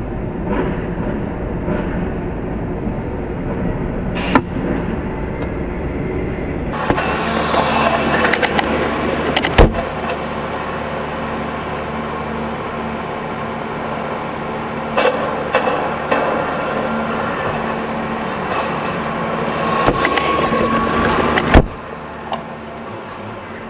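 Lorry cab noise at a crawl and standstill: the diesel engine idling. About a third of the way in a steady hiss and hum join it, then cut off with a sharp click a couple of seconds before the end, with a few lighter clicks along the way.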